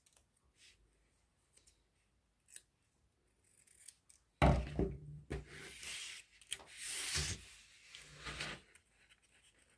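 Small scissors cutting a shape out of thin white paper: faint snips at first, then a knock about four seconds in and louder snipping and paper rustling for about four seconds.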